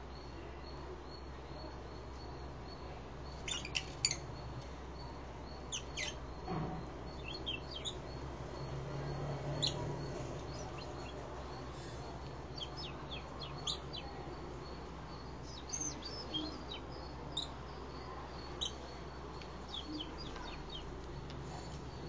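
Fischer's lovebirds chirping: scattered short, high chirps, singly and in quick little runs, starting a few seconds in.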